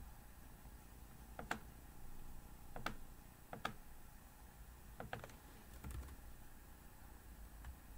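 Faint clicks of a computer mouse as wires are drawn in a schematic program: about six short, sharp clicks spaced a second or so apart, some in quick pairs as the button is pressed and released.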